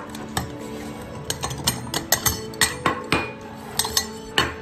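Stainless-steel feeding bowls clinking and clattering against each other and the wooden tabletop as they are handled, in an irregular run of about a dozen sharp metallic knocks.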